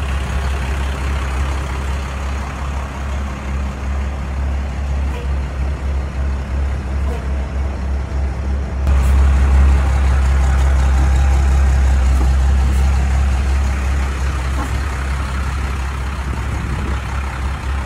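Engine of a vintage-style cabover semi tractor running with a steady low rumble as the truck moves; it suddenly gets louder about halfway through and stays up for several seconds before easing back.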